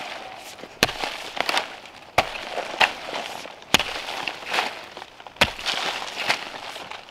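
Hand hoe with a metal blade chopping into soil: four sharp strikes about every second and a half, with lighter knocks and the scrape of loosened earth between them.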